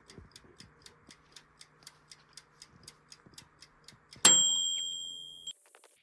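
Wind-up kitchen timer ticking steadily, about four to five ticks a second, then its bell goes off once a little past four seconds in, a bright ring that fades over about a second. The timer is signalling that the bake has reached the point to take the Dutch oven lid off.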